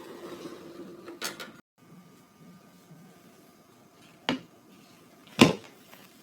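Kitchen clatter: two sharp knocks of hard objects, the second and louder about a second after the first, following a short stretch of steady hum with a click.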